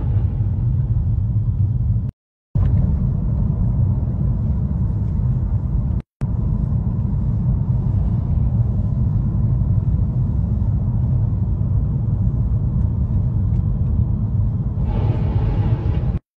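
Steady low rumble of a car driving on the road, heard from inside the car's cabin. It is broken by a few short silent gaps, with a brighter rushing noise for about a second near the end.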